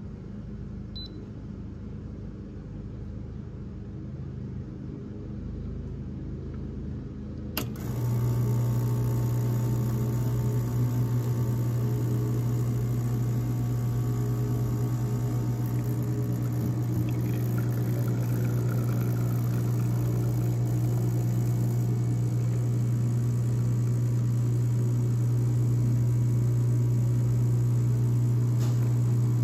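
An ECM Puristika espresso machine's vibratory pump switches on with a click about seven and a half seconds in, then buzzes steadily as it pushes water through the puck at 6 bar during the shot. Before the click there is only faint room tone.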